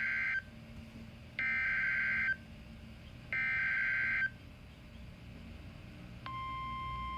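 Emergency Alert System SAME header: three bursts of digital data noise, each about a second long with a second's pause between them, the first already under way at the start. About six seconds in, a steady single-pitched alert tone begins and holds: the weather-radio warning alarm that announces the alert.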